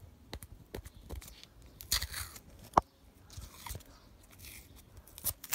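Hands working with tape on the pressure washer: scattered clicks, crackles and scrapes, the loudest a single sharp click a little under three seconds in.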